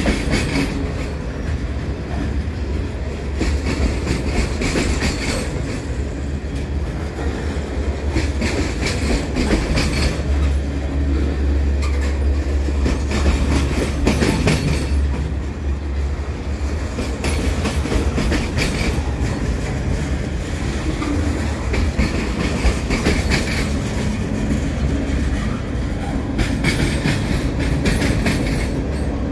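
Freight train cars rolling past: covered hoppers, a boxcar and tank cars. There is a steady low rumble and repeated clacks of the wheels over rail joints.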